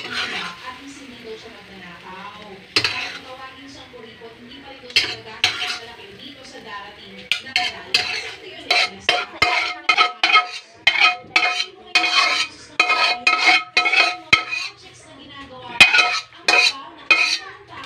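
A metal utensil scraping and knocking against an aluminium wok as cooked egg is scraped out onto a plate, the wok ringing at each strike. The knocks are sparse at first, then about halfway through become a quick run of repeated strikes.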